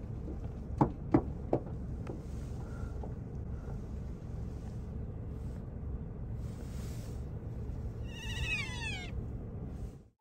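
A short animal call sliding down in pitch near the end, over a steady low outdoor rumble, with a few sharp knocks about a second in.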